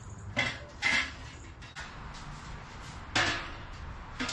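Stainless steel stovepipe sections knocking and scraping against each other and the sheet-metal wood stove as the flue is fitted together: two short knocks near the start, then a longer scrape about three seconds in.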